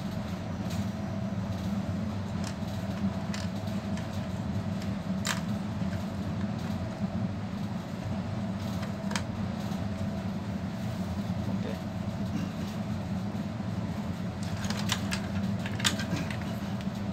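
Steady low machine hum, with scattered light clicks and taps throughout and a small cluster of them near the end.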